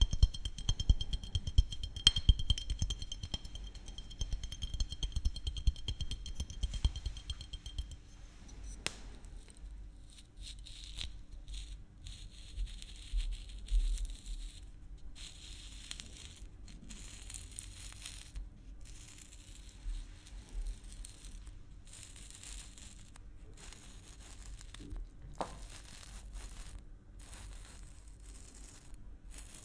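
Close-miked fingertips and nails tapping rapidly on a glass maple syrup bottle, with a thin high ring under the taps. From about eight or nine seconds in, the bottle's plastic screw cap is twisted and rubbed in short scraping, crinkly bursts.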